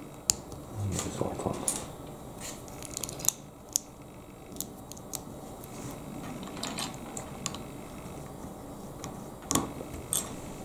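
Small LEGO plastic pieces being handled and pressed together, with scattered sharp clicks and light rattling.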